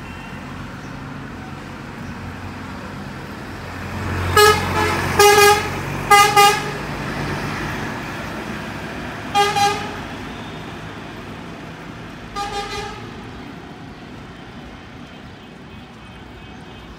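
A vehicle horn honking in short toots, often two at a time, over a steady street-traffic rumble, with a motor vehicle passing close about four seconds in.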